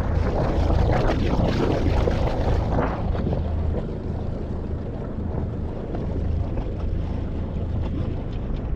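A sailboat motoring under engine: a steady low engine drone, with water rushing and splashing along the hull and wind on the microphone. The water noise is loudest for the first three seconds.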